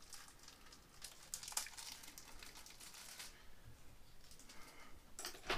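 Faint crinkling and rustling of a small plastic packet being handled, in short scattered crackles, with a louder crackle near the end.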